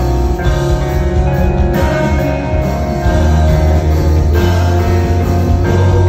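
Live rock band playing a song with electric guitars, bass and drums under a lead singer, heard through a phone's microphone in the crowd. The band gets louder about halfway through.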